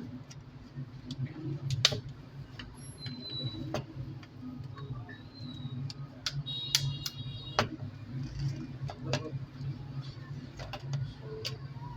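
Scattered light clicks and taps of hand tools working on a smartphone being taken apart for a screen replacement, over a steady low hum.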